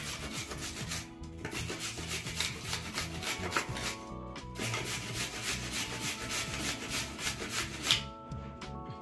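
Carrots being grated on a stainless-steel box grater: quick, regular rasping strokes, with a few short pauses between runs. Soft background music plays underneath.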